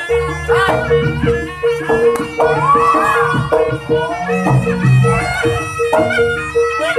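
Javanese barongan folk music. A reedy shawm-like wind instrument plays a bending melody over a fast, evenly repeated metallic note and drums.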